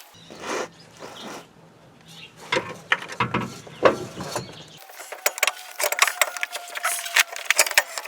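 Metal knocks, clanks and scraping as a replacement power transfer unit is wrestled into place under the car. A low hum runs under the first half, then a dense run of sharp clicks and knocks with a faint metallic ring.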